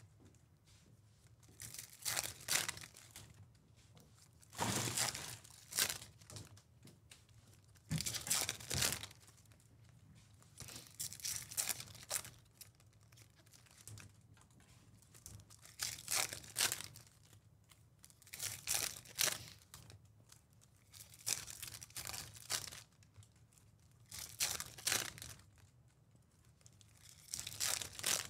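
Topps Chrome baseball cards handled and dealt by hand onto stacks: short papery rustles and swishes every second or two, with a foil pack wrapper crinkling near the end.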